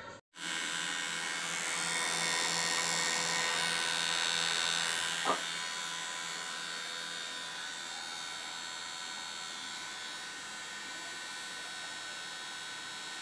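Refrigeration vacuum pump running with a steady electric hum while it evacuates the split AC's refrigerant lines through the service valves. It is slightly louder for the first few seconds, and a single click comes about five seconds in.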